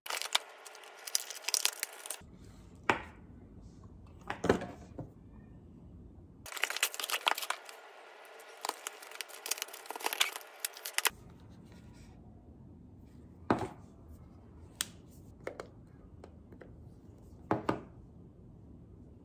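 Kraft paper packing crinkling and a paperboard box being opened, in two spells of dense crackling, with scattered single taps and clicks in between and near the end.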